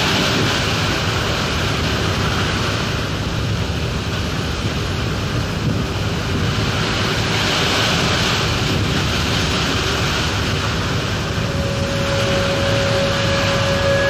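Wind buffeting the microphone over the steady rush of a cargo ship's hull pushing through big breaking waves and spray. A few held tones come in near the end.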